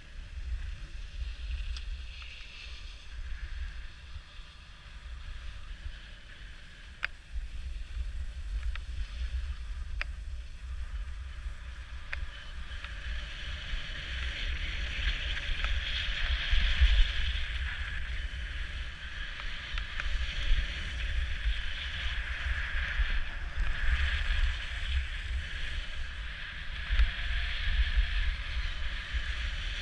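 Wind rumbling on the microphone while sliding downhill over packed snow, with a steady hiss and scrape of the snow surface that grows louder about halfway through as speed picks up.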